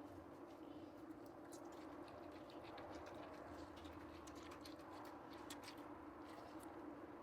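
Faint scattered light clicks and ticks over a steady low hum, close to silence.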